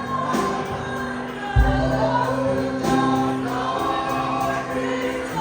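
Gospel worship music: a choir singing long held notes over accompaniment, with a strong low bass note coming in about a second and a half in.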